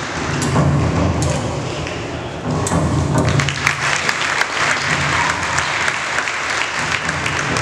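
Audience clapping that swells about three seconds in, over background music with a low pulsing beat.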